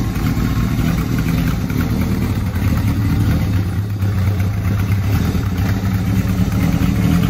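1977 Kawasaki KZ1000's air-cooled inline-four engine running steadily at low revs as the freshly rebuilt bike is ridden off slowly.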